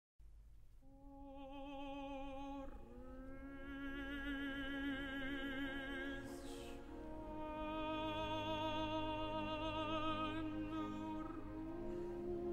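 Background music: a classical operatic voice sings long held notes with wide vibrato over a soft orchestral accompaniment, fading in from silence right at the start.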